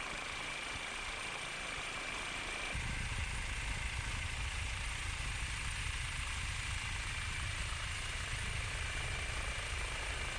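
Steady engine drone of a helicopter, with a thin high-pitched whine running through it. The low rumble grows fuller about three seconds in.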